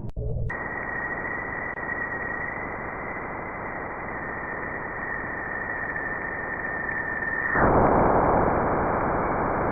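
Space radio recording played back as sound: a hiss like radio static with a steady, high whistle tone that drifts slightly lower. About three-quarters through, the whistle stops and the hiss grows louder.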